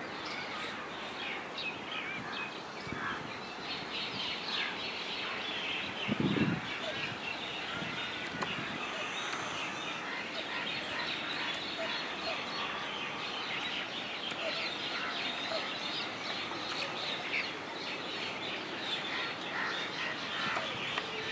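Many small birds chirping and calling at once in a dense, continuous chorus. A brief low sound stands out about six seconds in.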